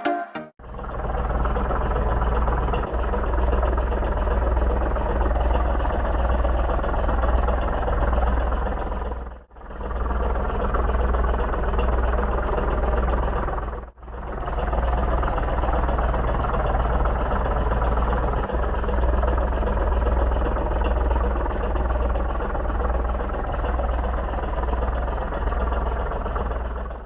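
An engine running steadily with a low, pulsing throb. It is cut off abruptly twice, about nine and a half and fourteen seconds in.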